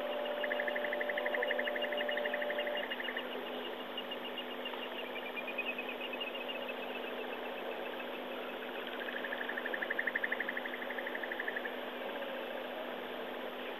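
Insects trilling in the bush: a loud, rapidly pulsing trill near the start and another about two-thirds of the way through, over a fainter chirping chorus and a steady low hum.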